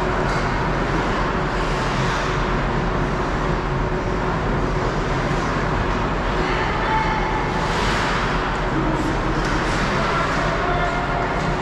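Ice hockey rink ambience: a steady wash of arena noise, with short scraping swishes of skates on the ice a few times, the strongest about eight seconds in.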